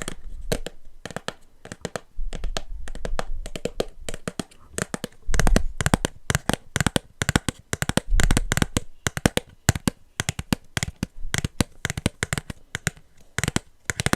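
Fingers tapping and handling a cardboard blind box close to the microphone: a quick, uneven run of sharp taps and clicks, with a few dull low thumps.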